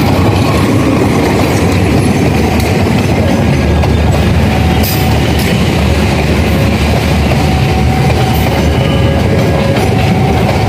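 KAI passenger train coaches rolling past close by: a loud, steady rumble of steel wheels on the rails, with a few sharp clicks as the wheels cross rail joints.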